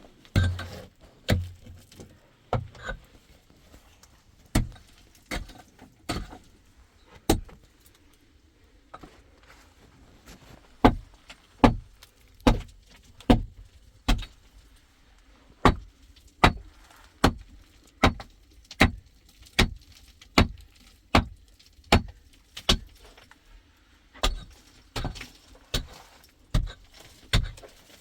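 Repeated sharp strikes of a metal hand tool on rock or hard ground, as in digging out a cave. The blows come irregularly at first, then settle into a steady beat of about one a second.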